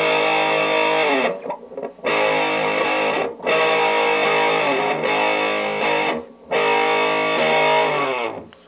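An electric guitar, tuned down a half step and played with distortion, sounds a fourth-interval power chord: the A power chord with the root raised an octave so that the fifth is the lowest note. It is struck four times, and each chord rings for one to three seconds before a short break.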